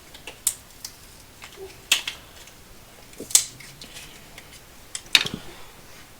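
Small tool packaging being handled: a few sharp plastic clicks and snaps, spaced a second or more apart, the loudest about three and a half and five seconds in.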